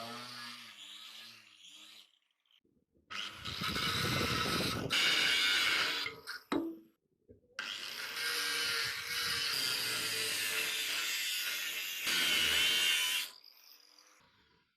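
A power tool running in two long bursts, the first about three seconds and the second about five seconds, with a short sharp sound between them.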